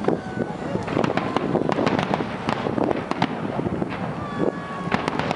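Aerial fireworks shells bursting in quick succession, a dense, continuous run of overlapping bangs and crackles.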